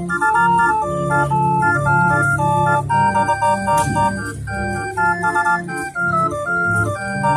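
Hand-cranked street organ playing a tune: a pipe melody over a bass accompaniment pulsing in a steady beat.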